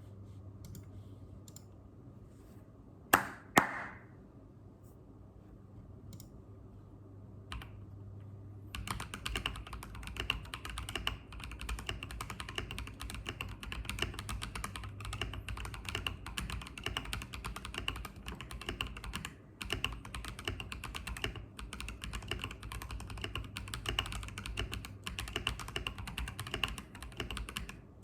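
Mechanical keyboard with Fantasy Carrot tactile switches being typed on. After a few scattered key clicks and two loud, sharp clicks about three seconds in, fast continuous typing starts about nine seconds in and keeps going, with a brief pause partway through.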